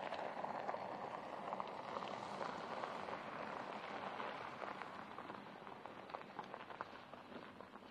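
Tyres of a Porsche Cayenne Turbo crunching and scattering loose gravel on a dirt track as the SUV drives past at speed, a dense patter of small stone clicks that fades near the end.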